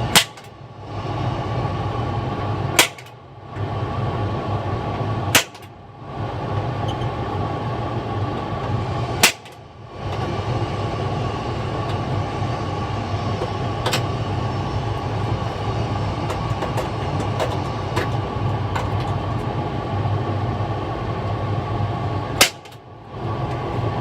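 Cordless drill drilling out instrument-panel rivets, running steadily and pausing briefly five times, each pause starting with a sharp click.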